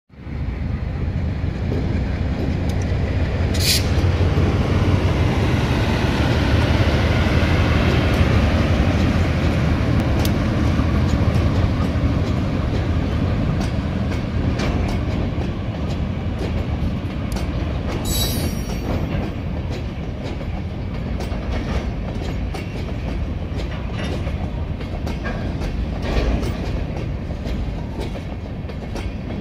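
Diesel-hauled freight train passing slowly: a low rumble as the locomotive goes by, then a steady run of wheel clicks over the rail joints as the freight cars roll past. Brief high wheel squeals come about four seconds in and again around eighteen seconds.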